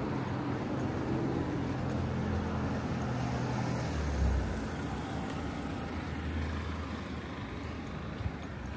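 A road vehicle's engine running close by: a steady low hum that weakens after about four seconds, over the constant hiss of street traffic.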